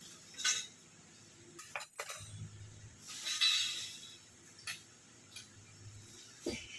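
A few light clinks and taps of small hard objects, spread irregularly, with a short hiss lasting about a second around three seconds in.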